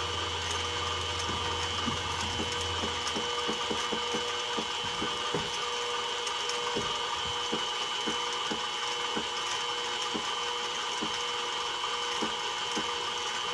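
CNC-converted mini mill with its spindle running, a steady whine, while the Z-axis stepper jogs down in single increments, giving a scatter of irregular small ticks as the tool is touched off. A low hum cuts off about three seconds in.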